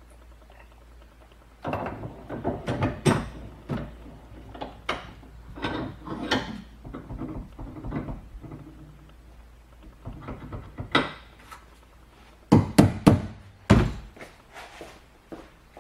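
Irregular knocks, clicks and clatter of tools and small metal parts being handled while a battery master switch is worked on. The loudest is a quick cluster of knocks about three-quarters of the way through.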